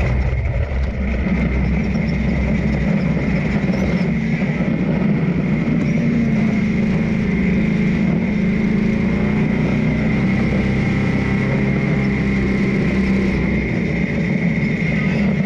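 Dune buggy engine running under load as the buggy drives over sand dunes and picks up speed, its note wavering slightly. A steady high-pitched tone runs along with it.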